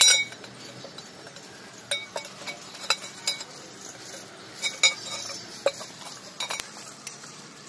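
Irregular metallic clinks and knocks as a diesel generator's metal oil filter bowl is handled and wiped out by hand during an oil filter change.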